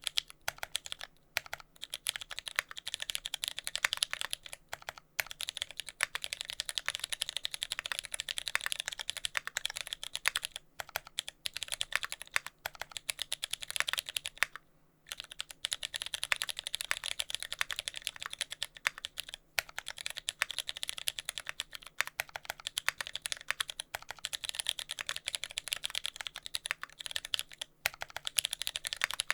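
Fast, continuous typing on a TX65 mechanical keyboard: lubed Cherry MX Brown tactile switches in a brass plate, with GMK keycaps and no sound dampening. The tactile legs were left unlubed, which leaves a faint scratchy contact-like noise under the keystrokes. The typing breaks off briefly a few times, once for about half a second halfway through.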